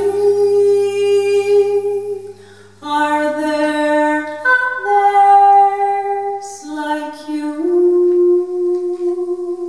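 A woman singing slow, long-held notes, with a low electric bass note sustained beneath them that fades out about two-thirds of the way through.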